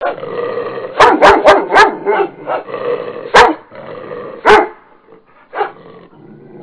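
A dog barking loudly: a quick run of four barks about a second in, then single barks spaced a second or so apart.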